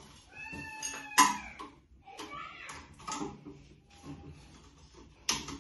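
Closet frame tubes squeaking as they are twisted and pushed into plastic connectors: a few short squeaks, with sharp clicks and knocks as the tubes seat, the loudest a little over a second in and another near the end.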